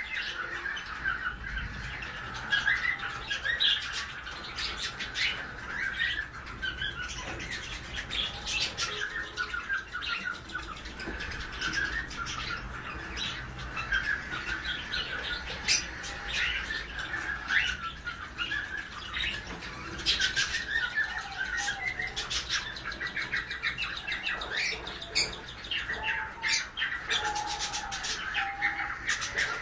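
A pair of sun conures chattering while mating: a steady stream of short, rapid chirps and squawks.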